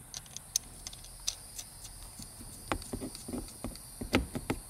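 Irregular metallic clicks and knocks of a socket ratchet working the 17 mm bolt on the side of a manual transmission shifter. The clicks are light at first and grow heavier and closer together about two and a half seconds in.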